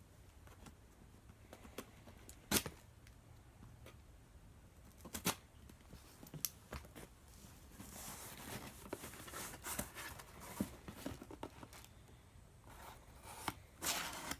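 A small cardboard shipping box being opened by hand: sharp clicks and taps, with stretches of tearing and rustling from about eight seconds in and again near the end.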